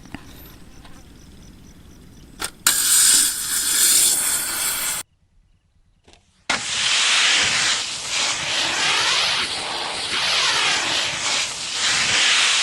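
Loud hissing noise in two stretches, each starting and stopping abruptly, with a short silence between them; the second has a sweeping, whooshing character.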